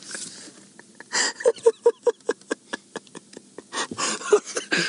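A man cracking up with laughter: quick breathy pulses of laughing, about five a second, broken by gasping in-breaths.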